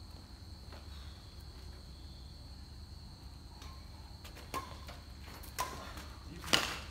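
Badminton rackets hitting a shuttlecock three times in a rally, roughly a second apart, the last hit the loudest. A steady high-pitched tone runs underneath.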